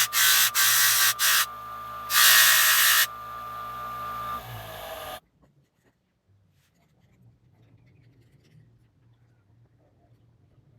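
Electric power tool working wood: its motor runs with a steady whine while loud bursts of cutting or abrading noise come and go in short strokes, the longest about two seconds in. It cuts off abruptly about five seconds in, leaving only faint, low sounds.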